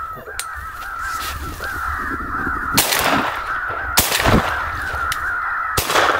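Electronic crow caller playing recorded crow-fight cawing without a break, cut off above a fairly low pitch, broken by three sharp bangs about a second or two apart.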